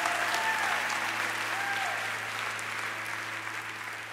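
Live concert audience applauding and cheering, with a few shouts, over a low steady tone; the sound fades out gradually.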